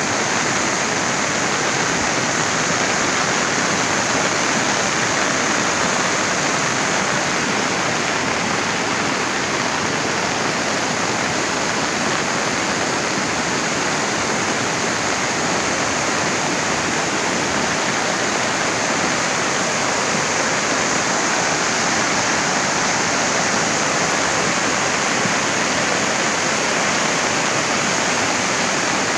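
Floodwater rushing, a loud, steady, unbroken sound of fast-flowing water.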